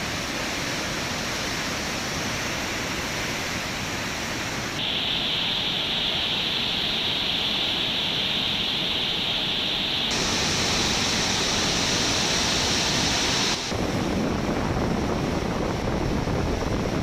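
Rushing floodwater of a river in spate: a steady roar of churning water, changing abruptly in tone three times as different stretches of the torrent are heard.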